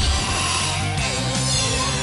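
Background music for a cartoon action scene, with rock-style guitar.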